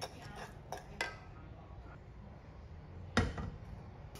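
A few light knocks of a wooden spoon against a small saucepan of quail eggs, then a louder single knock about three seconds in as the saucepan is set down on the gas stove's metal grate.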